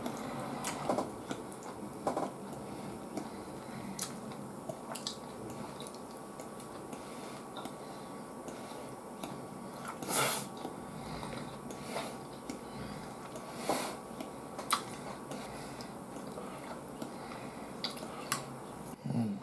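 A person chewing and eating grilled eel (unagi), soft wet mouth sounds with chopsticks clicking against the plate now and then, and a few louder brief mouth noises.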